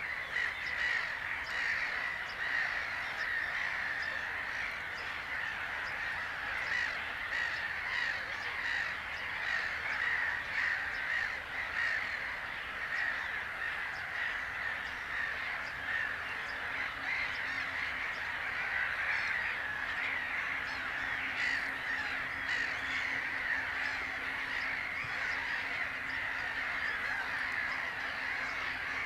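Dense, continuous chatter of many birds calling over one another, with no let-up.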